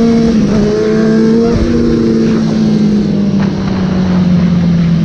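Motorcycle engine held at steady high revs through a wheelie, its pitch sinking slowly as the throttle eases, over wind rush on the microphone.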